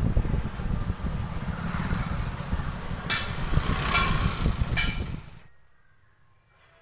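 Wind buffeting the microphone over the engine and road noise of a moving vehicle, a loud, rough rumble that cuts off about five seconds in to near silence.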